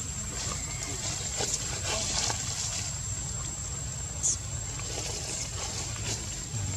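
Outdoor background noise: a steady low rumble with faint scattered rustling, and one short high chirp about four seconds in.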